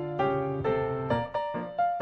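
Background piano music, single notes and chords struck a few times a second.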